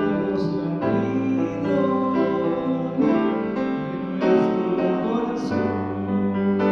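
Upright piano played with both hands: sustained chords over a bass line, the harmony changing about every second or so.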